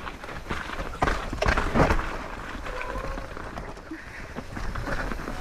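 Electric mountain bike (Santa Cruz Bullit) clattering over a rough dirt trail: a rapid, irregular rattle of knocks and clicks from tyres, chain and frame, loudest about one to two seconds in, over wind rumble on the bike-mounted camera's microphone.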